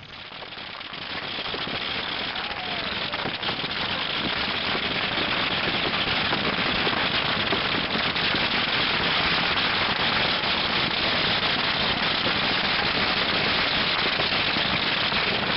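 Dense, continuous crackling and hissing of many small firework rockets flying at once in a barrage. It fades up over the first two seconds and then holds steady.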